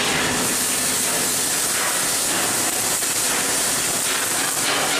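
Stick arc welding on steel plate: a steady crackling hiss from the burning electrode.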